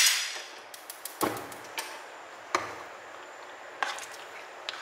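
A spatula stirring thick tomato sauce in a nonstick pan, knocking sharply against the pan about six times, two of the knocks heavier than the rest.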